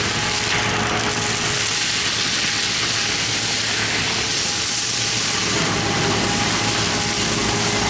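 Heavy forestry machine running steadily under load: a constant engine hum beneath a loud, even hiss of machinery noise.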